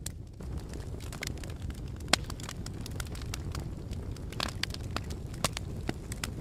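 Campfire burning with a steady low rumble and scattered crackles and pops from the burning wood, the sharpest pop about two seconds in.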